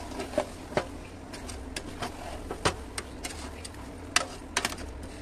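Perforated spatula knocking and scraping against a metal pot while biryani rice is stirred: a dozen or so irregular sharp clicks and taps over a steady low hum.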